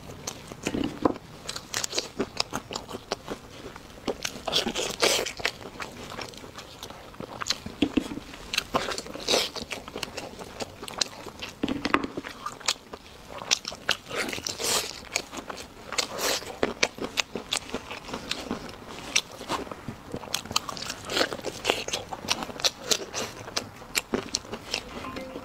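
A person biting and chewing braised ribs close to the microphone: many irregular short clicks and mouth noises of eating meat.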